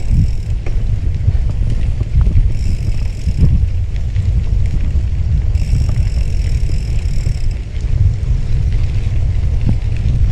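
Wind buffeting the microphone of a camera on a moving bicycle, a steady low rumble. A faint high-pitched whine comes and goes twice.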